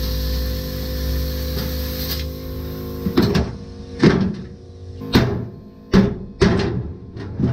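A plasma cutter with a built-in air compressor running: a steady hiss over a hum, which cuts off about two seconds in. Music with sharp, irregular beats follows.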